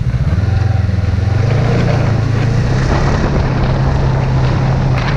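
Snowmobile engine running under throttle while riding along a snow trail; the engine note rises slightly about a second and a half in, then holds steady.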